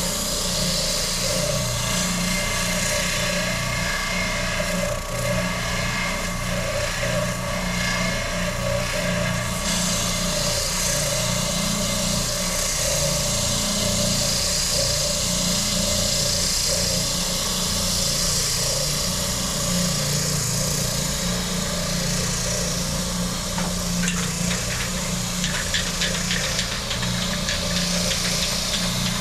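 Power tool motor running steadily while shaping and smoothing the edge of a wooden guitar body, with a constant low hum under a dense hiss.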